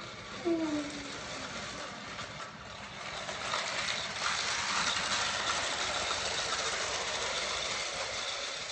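Lego Power Functions motor driving a toy tram along plastic Lego track: a steady whirring of motor and gears with the wheels rattling on the track, growing louder about three and a half seconds in as the tram passes close. A short falling tone sounds about half a second in.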